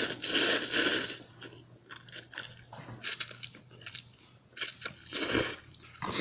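Someone eating hot chicken-flavour instant ramen noodles close to the microphone: chewing and biting, with several louder noisy bursts, the strongest in the first second and again about five seconds in.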